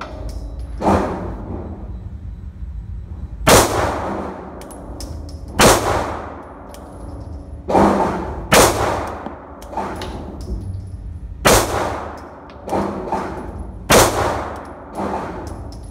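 Glock G43X 9mm pistol firing a string of about ten shots, one to three seconds apart, each with a ringing tail.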